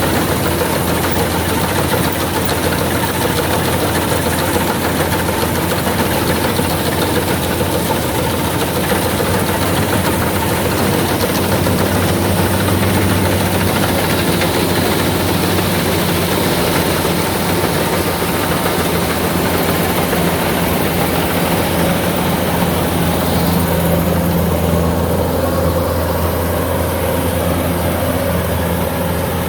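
Kubota rice combine harvester running steadily, its diesel engine holding an even drone.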